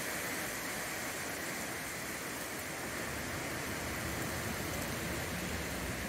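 Rain and wind of a derecho thunderstorm: a steady, even rushing hiss with no thunder.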